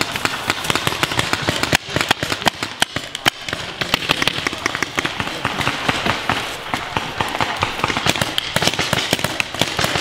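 Paintball markers firing. Sharp pops come many times a second with barely a break, as several guns shoot at once.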